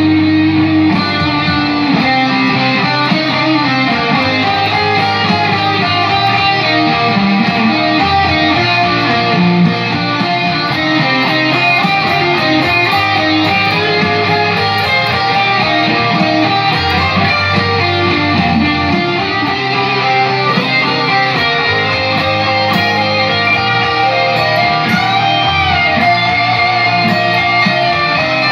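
Gibson Les Paul electric guitar playing a hard-rock instrumental lead over a full backing track, with a steady bass line beneath.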